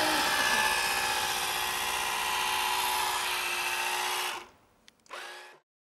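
Small electric motor of a Nikko Sea Racer RC boat, whining steadily at running speed. It cuts off abruptly about four seconds in, comes back briefly for half a second, then stops.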